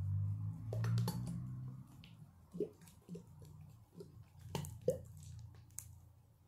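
Close-mic ASMR handling sounds of a clear cup being moved about: a low rubbing rumble for about the first two seconds, then a scattering of light taps and clicks.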